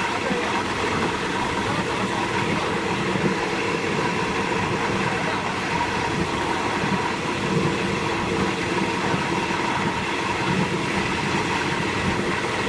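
State Railway of Thailand diesel train running along the line, heard from on board as a steady, unbroken rumble of wheels on the rails.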